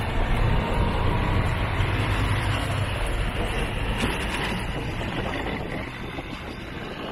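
Motorcycle tuk-tuk on the move, heard from the passenger seat: a steady low engine rumble with road and wind noise, easing off a little over the last few seconds.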